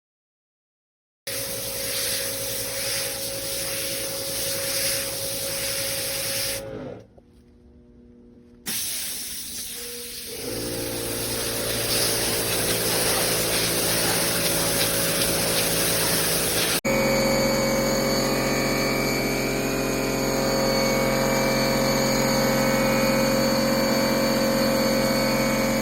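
Giraffe Tools Grandfalls Pressure Washer Plus+ running and spraying: a steady motor hum under the hiss of the water jet. About seven seconds in, the spray stops for a couple of seconds while the motor winds down, then it starts up again and runs on.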